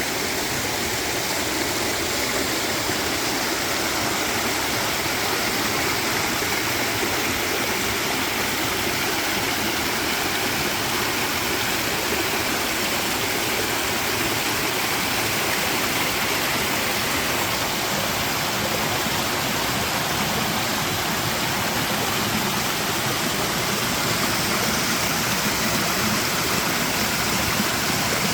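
Running water: a steady, even rush with no bird calls standing out.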